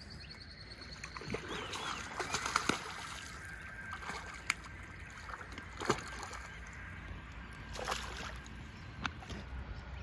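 Water sloshing and splashing lightly at the river's edge, with several sharp clicks and knocks scattered through.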